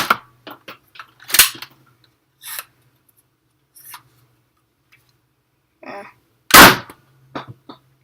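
Nerf Firestrike spring-powered dart blaster being fired and handled: loud sharp snaps at the start, about a second and a half in and near the end, with lighter plastic clicks between.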